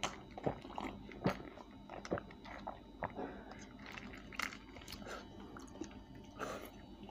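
A person eating and drinking close to the microphone: irregular crunches, wet mouth clicks and swallows while chewing spicy fried chicken and sipping from a paper cup. The sharpest clicks come right at the start, about a second in and a little past four seconds.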